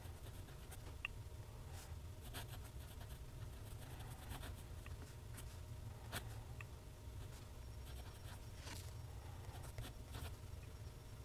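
Faint scratching of a TWSBI ECO fountain pen's steel nib writing cursive on Clairefontaine paper, in short irregular strokes. A low steady hum lies underneath.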